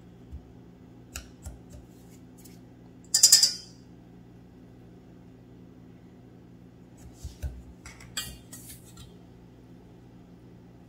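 Metal whisk and spoon clinking and scraping against stainless steel mixing bowls while bath bomb mixture is worked: a few light clicks, one louder clatter about three seconds in, and a run of clinks near the end.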